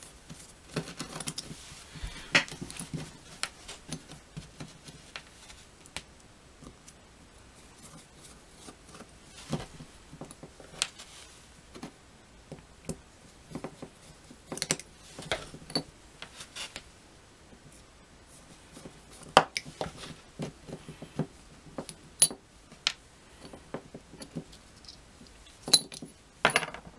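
Small metal clicks, scrapes and taps at irregular intervals as a small screwdriver turns out the cover screws of a chainsaw's Tillotson diaphragm carburetor and the metal cover is lifted off.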